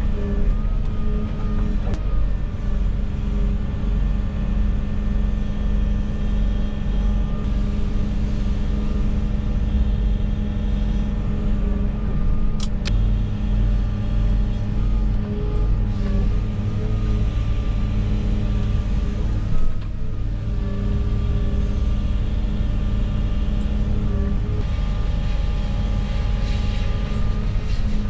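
Heavy diesel engine of a wheeled excavator running steadily under light load. A faint whining tone comes and goes above it, and there are a couple of sharp clicks.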